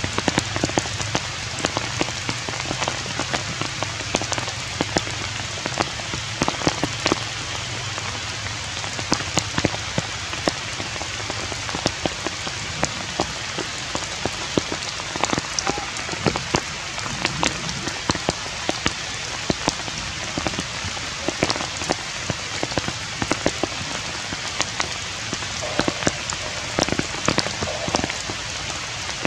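Steady rain falling, an even hiss with frequent sharp, irregular drop impacts.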